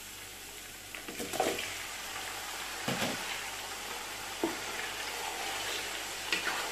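Raw chicken pieces going into hot oil with garlic-ginger paste and green chillies in a large pot, the sizzle growing louder about a second in as the meat goes in. A wooden spatula stirring the pieces knocks and scrapes against the pot several times.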